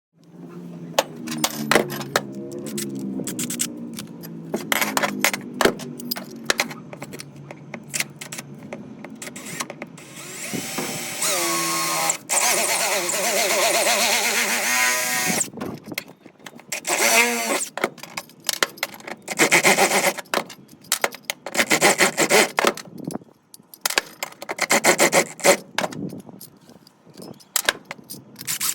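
Tools at work on plumbing pipe: a steady motor hum with scattered clicks, then about five seconds of loud cutting noise, then a run of separate rasping strokes, each about a second long, typical of sawing or filing a pipe to length.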